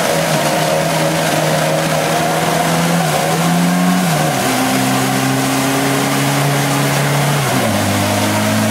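Small four-wheel drive's engine running steadily under load as it wades through deep creek water. Its pitch rises a little about three seconds in, drops a second later, and steps down again near the end.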